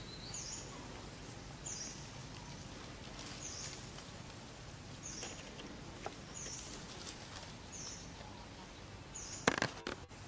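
Outdoor ambience with a faint, high, short chirp repeating about every one and a half seconds over a steady background hiss, and a sharp click near the end.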